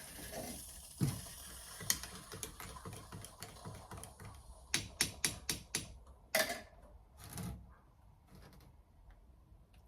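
A series of sharp mechanical clicks and knocks: single clicks early on, a quick run of five about half way through, then two duller knocks.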